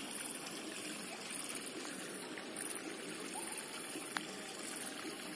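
Water running steadily down a channel cut in a mud bank and pouring over a slotted pathakattai fish trap. A high buzz pulses on and off in the background, and there is one sharp click about four seconds in.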